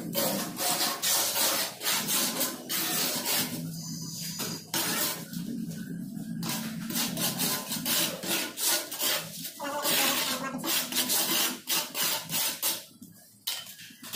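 Rough scraping and rubbing strokes, repeated irregularly, from floor-tiling work with hand tools on mortar and tile. They get quieter near the end.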